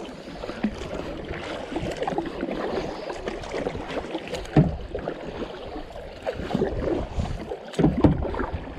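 Kayak paddle strokes: the blades dip and splash into the water on alternating sides in quick, uneven succession as the kayak is driven hard, with water swishing along the hull. There are a couple of louder splashes or knocks, one about halfway and one near the end.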